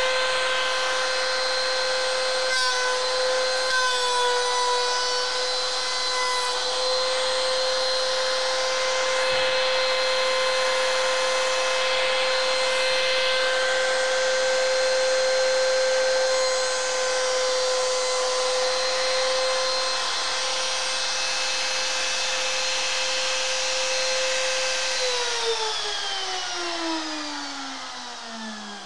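Table-mounted trim router with a quarter-inch core box bit, running at a steady high whine while routing a half-round groove in wood. About 25 seconds in it is switched off, and the whine falls in pitch as the motor spins down.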